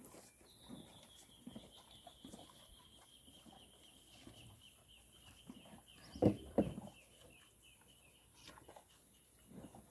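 Cattle eating from a plastic tub: soft, frequent chewing and knocking sounds, with two loud thuds a little after the middle. A high, slowly falling trill runs in the background for most of the time.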